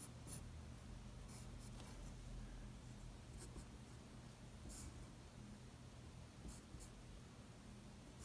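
Faint scratching of a Tombow Mono graphite pencil drawing lines on paper, in short strokes.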